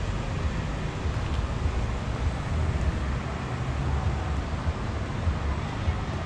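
Wind noise on the camera microphone of a moving bicycle: a steady low rush with uneven surges.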